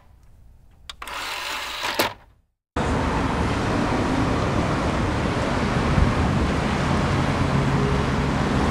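After a short stretch of faint sound ending in a click and a moment of silence, steady street traffic noise starts about three seconds in. Near the end a low engine hum comes up as the air-cooled VW Beetle approaches.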